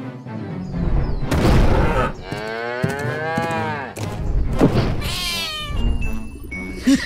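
A cartoon cow's long moo that rises and then falls in pitch, about two seconds in, over background music. A shorter, higher animal cry follows just after it.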